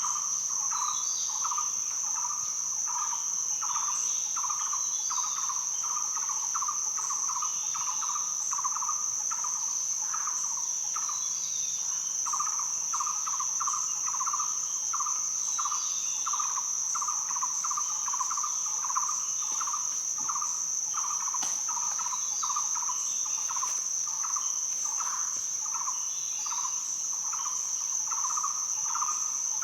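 Rainforest insect chorus: a steady high-pitched insect drone over a lower chirp that pulses two to three times a second. Faint bird calls come in every few seconds.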